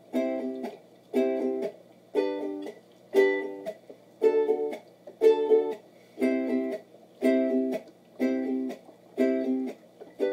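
Ukulele strummed in short bursts of chords, about one a second, each a quick flurry of strokes followed by a brief pause.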